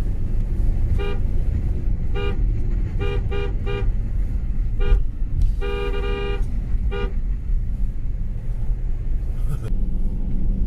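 A car horn tooting eight times: a run of short toots, with one longer blast about six seconds in. Under it runs the steady low rumble of a vehicle on the road.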